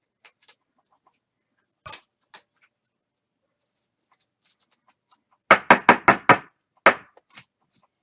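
Trading cards being handled, with a few light clicks, then a quick run of five sharp knocks a little past halfway and one more just after.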